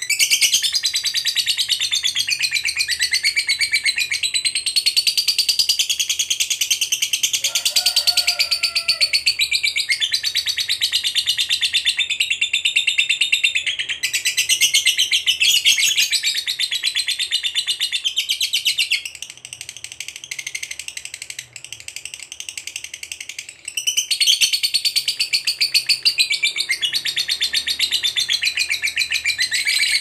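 Lovebird giving a long, rapid, high-pitched chattering trill (the 'ngekek panjang' call). It runs almost without a break, with a quieter stretch about two-thirds of the way through.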